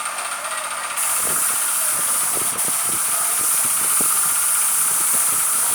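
Compressed-air paint spray gun hissing as paint is sprayed onto a car body, the hiss starting about a second in and then holding steady.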